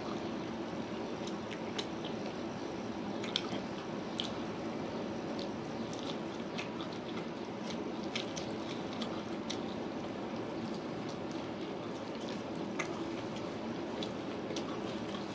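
Close-miked eating: chewing and wet mouth smacks as chicken leg meat and curry-soaked rice are eaten by hand, with soft squishy sounds of fingers pulling the meat apart. Many short, sharp smacks are scattered through it over a steady background noise.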